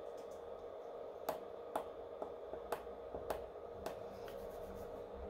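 Sharp, irregular clicks and taps, about seven in two and a half seconds, as fingers press and wiggle components and wires in a plastic solderless breadboard, over a faint steady hum. The circuit is silent: a jumper pulled loose while probing left the speaker disconnected.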